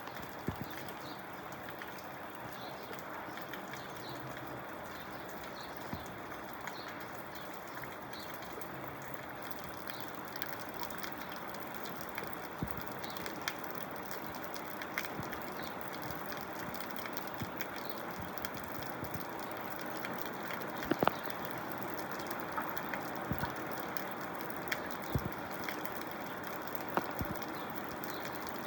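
Steady rain-like wash of running water, with scattered sharp drips and plops landing throughout; the loudest hits come about two-thirds of the way through.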